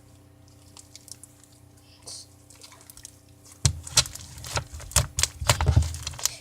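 Slime squished and pressed by hand, making wet pops and clicks: only a few faint clicks at first, then from about three and a half seconds in a quick run of loud, sticky pops.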